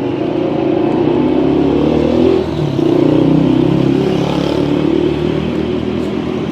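A motor vehicle's engine running close by, loud and steady, with a brief dip about two and a half seconds in.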